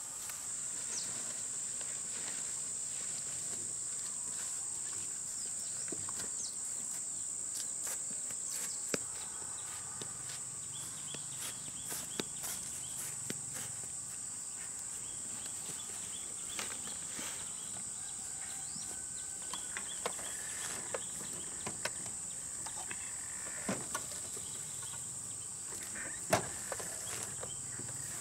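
Insects droning steadily at a high pitch, with scattered light clicks and rustles over it and one sharper click near the end.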